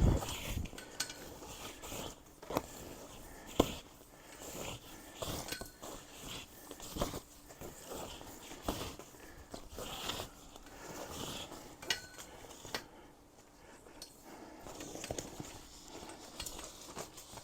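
Irregular clinks, knocks and rustling as an extension cord is handled and woven along the metal poles of a carport frame, with the sharpest knock about three and a half seconds in.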